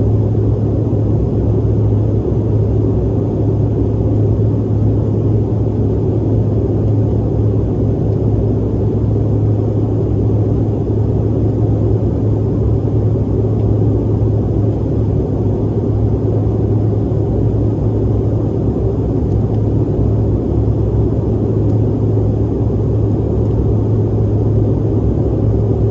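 Cabin noise inside a Bombardier CRJ-900 airliner in flight: a loud, steady rumble of airflow and the rear-mounted turbofan engines, with an even low hum running under it.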